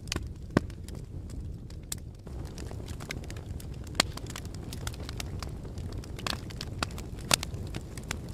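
Fire crackling: irregular sharp pops and snaps, a few louder than the rest, over a steady low rumble of burning.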